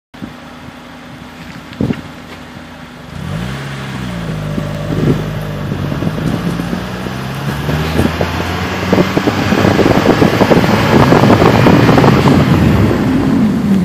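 Vehicle engine running steadily, then pulling away and accelerating, its pitch climbing and stepping through gear changes, with a single knock about two seconds in. Wind and road rush on the outside-mounted microphone build with speed until they are the loudest sound near the end.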